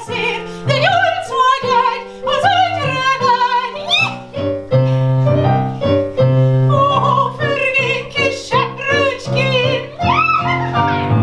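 A woman's operatic voice singing with wide vibrato, accompanied by piano.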